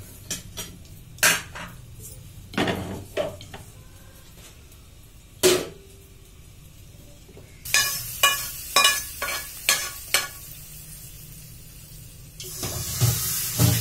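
Steel kitchen vessels and lids clanking and knocking, then a metal spatula scraping and tapping a steel pan in quick strokes as the tempering of oil, mustard seeds, cumin, peppercorns and curry leaves goes into the dal, with a burst of sizzling near the end.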